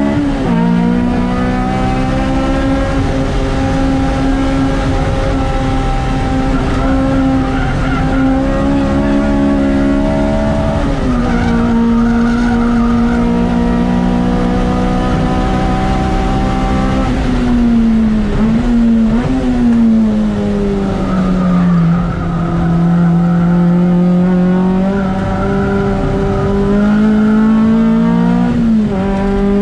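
Honda K20A four-cylinder engine of a track-prepared Civic EG6 pulling hard at high revs through a fast lap, its pitch climbing slowly, then falling sharply several times as it shifts and brakes for corners and climbing again. Tyres squeal in stretches through the corners.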